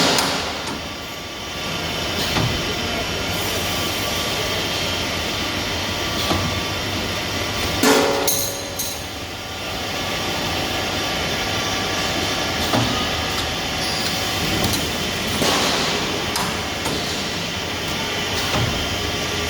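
Flat iron coil welding machinery running with a steady industrial din and hum, broken by a few sharp metallic clanks; the loudest, about eight seconds in, rings briefly.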